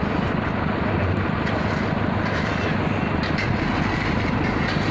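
A truck's diesel engine idling steadily, with shovels scraping and crunching into gravel at irregular intervals as gravel is loaded into a truck bed.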